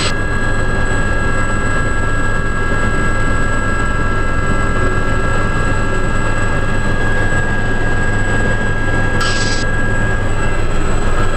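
Aérospatiale Gazelle helicopter in flight, heard from its cabin: the steady whine of its turboshaft engine over the low, constant drone of the rotor.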